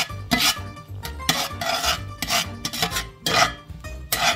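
Slotted metal spatula scraping and stirring chopped garlic in oil across a cast iron pan, in repeated strokes about two or three a second.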